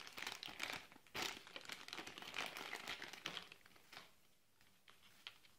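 Thin clear plastic bags crinkling and crackling in the hands as two camera batteries are unwrapped. The crackle is dense for about four seconds, loudest about a second in, then thins to a few faint handling clicks.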